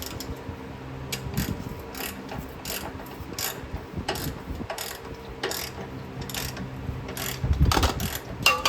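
Ratchet wrench with an 18 mm socket clicking in short strokes as a front subframe bolt is tightened down, with a heavier knock near the end.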